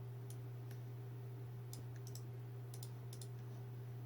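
Sharp clicks of a computer mouse, about eight spread unevenly over four seconds, over a steady low hum.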